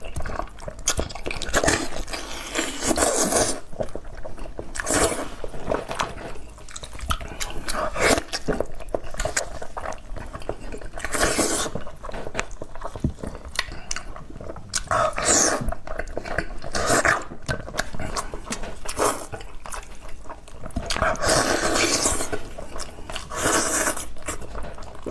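Wet eating sounds of a person biting, sucking and chewing soft, sauce-soaked braised pork knuckle, coming in irregular bursts.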